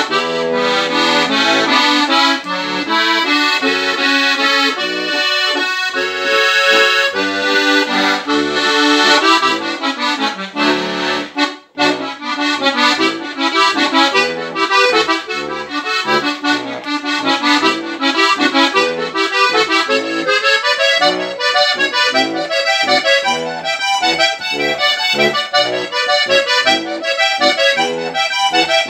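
Solo diatonic button accordion (Steirische Harmonika) playing a lively folk tune in D major, with a brief break about 12 seconds in.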